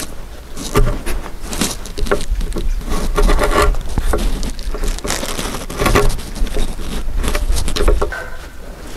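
Hanok chisel chopping out a mortise in a timber: a run of irregular wooden knocks, some in quick clusters, with the crunch and scrape of wood fibres being cut.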